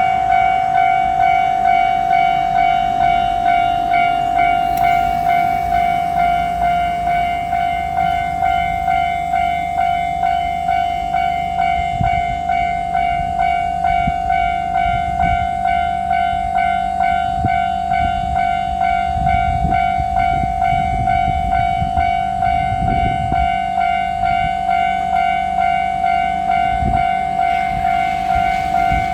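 Level-crossing warning bell ringing steadily, pulsing just under twice a second. A 2700 series limited-express diesel railcar train passes, its wheels clicking over the rail joints from about twelve to twenty-seven seconds in.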